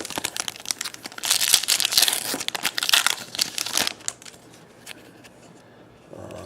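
Plastic trading-card pack wrapper crinkling as it is torn open, with dense crackling from about one to four seconds in, then lighter clicks of cards being handled.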